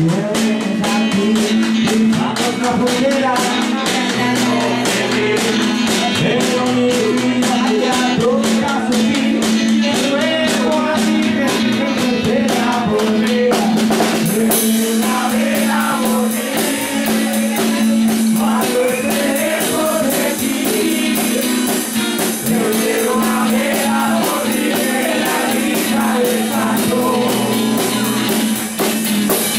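Live rockabilly song played on a strummed acoustic guitar and a drum kit with sticks, with a steady beat and singing over it. The cymbals ring brighter from about halfway through.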